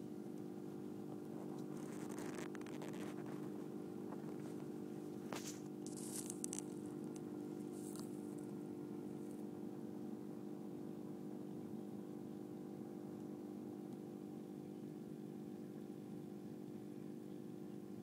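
Steady electric hum of aquarium equipment, such as the tank's filter or air pump, running. A few light clicks and rustles come in the first several seconds, then the hum goes on alone.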